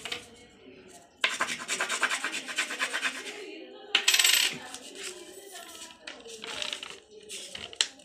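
A coin scraped rapidly back and forth over a sheet of A4 paper laid on candle-waxed newspaper, making a fast scratchy rubbing in spells of strokes starting about a second in. This rubbing presses the wax-loosened newsprint onto the sheet.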